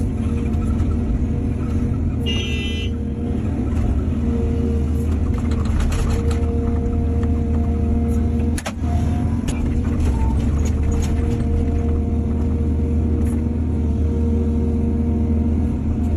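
Excavator's diesel engine running steadily, with a short high-pitched squeal about two and a half seconds in and a few sharp knocks later on.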